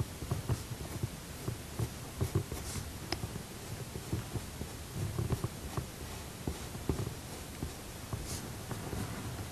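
Coloured pencil shading on drawing paper on an easel: irregular short strokes that come through as dull low taps with faint scratching.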